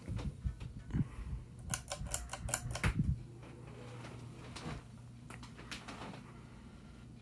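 Hunter Original ceiling fan's motor running with a low steady hum while its pull chain is worked: a quick run of sharp clicks and rattles from the chain and speed switch about two seconds in, with low knocks around it and a few more scattered clicks later.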